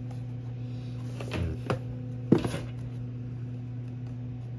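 Plastic DJI drone remote controller being handled: a few soft rubs and taps, then one sharp plastic click a little over two seconds in. A steady low electrical hum runs underneath.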